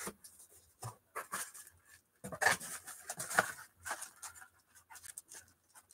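Faint handling noise of trading-card packaging: scattered short rustles and clicks, busiest from about two to three and a half seconds in.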